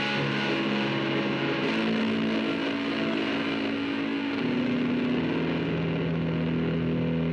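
Background music: heavily distorted electric guitar holding sustained chords, shifting to a new chord about two seconds in and again about four and a half seconds in.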